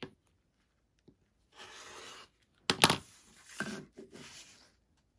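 Rotary cutter and acrylic quilting ruler handled on a cutting mat: a click, a short rasping slide, then a sharp clack about three seconds in as the tools are set down, followed by more rubbing and sliding.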